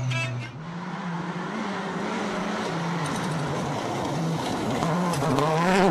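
Mitsubishi Lancer WRC05 rally car at full speed on a gravel stage, its turbocharged four-cylinder engine note rising and falling through the gears over a hiss of tyres and gravel. It grows louder and higher near the end as the car comes close.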